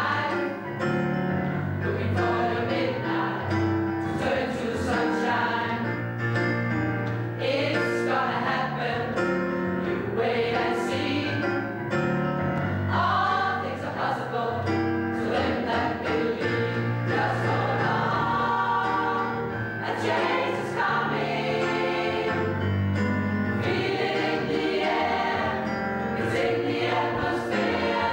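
A mixed gospel choir singing together in harmony.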